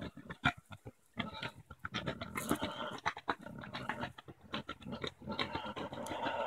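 Boar grunting in a quick series of short grunts as he courts a sow. The grunts are sparse at first and come thick and fast from about a second in.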